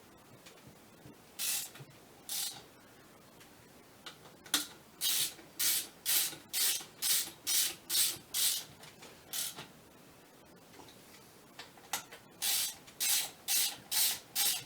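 A run of short hissing strokes, about two a second, in two spells with a pause of a few seconds between them, like quick squirts or rubbing strokes on a part.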